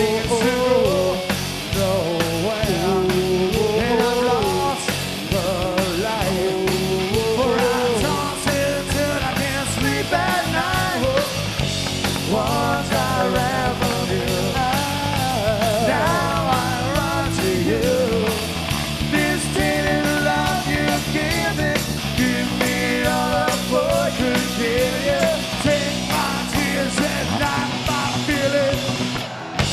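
Live rock band playing loudly: electric guitar, bass and drums with a singer at the microphone, wavering melody lines over a steady beat.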